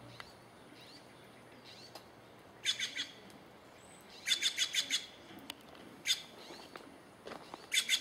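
Bird calling: three bursts of rapid, harsh notes, the second and longest about halfway through and the third near the end, with faint short chirps between them.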